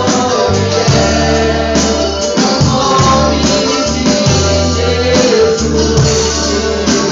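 Worship band playing live: singing over held bass notes and a steady percussion beat.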